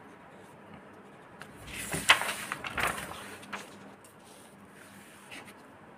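Printed paper pages rustling as they are turned over and handled, in a cluster of rough bursts for about two seconds in the middle.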